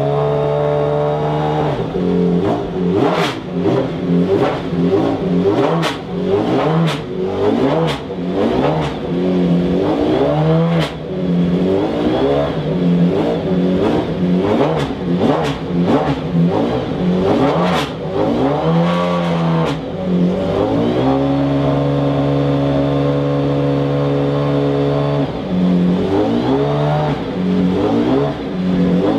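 McLaren F1 GTR Longtail's BMW V12 racing engine idling and being blipped over and over, its revs rising and falling. There are sharp cracks on many of the blips, and a steadier idle stretch about two-thirds of the way through.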